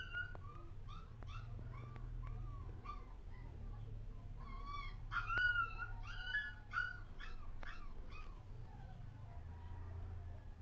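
Short, high animal cries repeated several times a second, in two runs: one at the start and a louder one in the middle. A low steady hum runs underneath.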